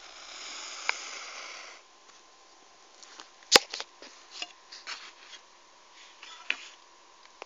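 Plastic geometry template and pen handled on paper. A scratchy rub lasts nearly two seconds, then a sharp click comes about three and a half seconds in, followed by a string of lighter taps and ticks.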